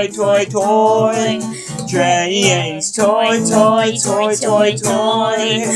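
A song: a voice singing long held notes over guitar accompaniment.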